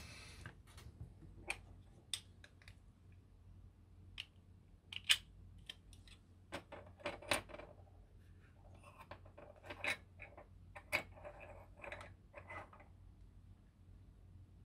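Hard plastic telescope-kit eyepiece parts clicking and knocking as they are handled and fitted together by hand: irregular sharp clicks, with some rustling between about nine and thirteen seconds in.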